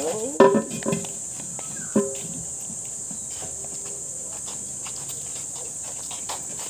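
Insects buzzing steadily in a high, even drone. Over it come a couple of short voice calls in the first two seconds and a few faint knocks.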